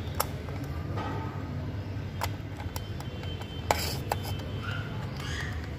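Several sharp plastic clicks and taps from a toy postal truck being handled by hand, the loudest about two-thirds of the way in, over a steady low hum.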